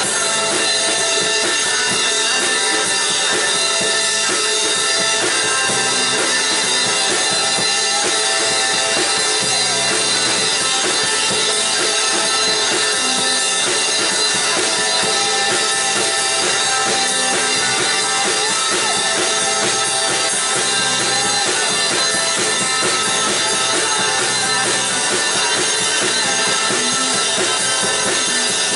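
A band playing a rock song live in a small room: drum kit, guitars and a man singing into a microphone, loud and continuous.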